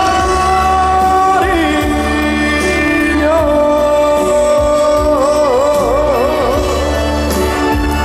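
Male trot singer holding long drawn-out sung notes over a live band backing, the last note wavering in a wide vibrato from about five seconds in.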